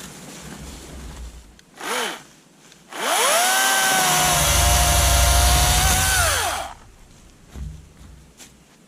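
Limbing saw cutting a root flush in a trail. The motor is blipped once briefly, then spun up and held at a steady high whine for about three and a half seconds before it winds down.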